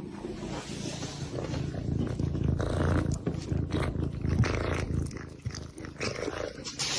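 A domestic cat purring, a steady low rumble.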